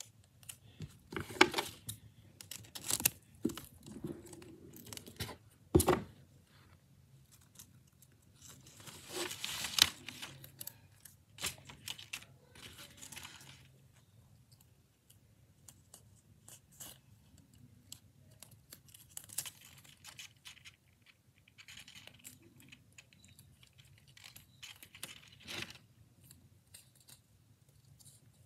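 Tape being pulled off the roll and torn, with paper being handled and rustled: irregular rips and rustles, with one longer pull lasting a few seconds near the middle.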